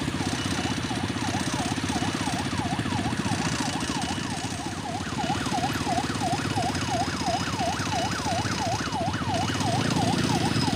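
Vehicle siren on a fast yelp, sweeping down and up in pitch about three to four times a second, over the low rumble of vehicle engines; the siren gets louder about halfway through.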